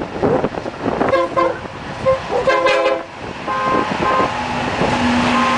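BNSF ES44DC's Nathan K5LLA five-chime air horn, which the uploader calls messed up, sounding a series of blasts of uneven length. Then a steady low drone of the locomotives' diesel engines working up the grade as they pass.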